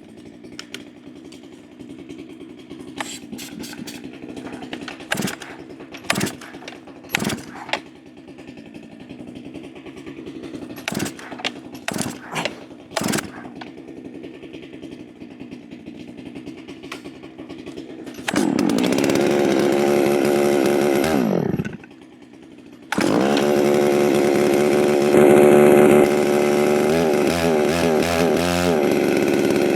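Holzfforma G660 Pro chainsaw, a Stihl 660 clone, being pull-started cold: a series of short pulls, then the engine catches about 18 seconds in, runs a few seconds and dies with a falling pitch, then fires again about 23 seconds in and keeps running at high revs, the revs rising and falling near the end.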